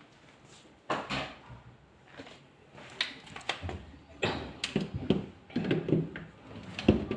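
Irregular knocks and clicks of parts and tools being handled during a refrigerator repair, sparse at first and busier in the second half.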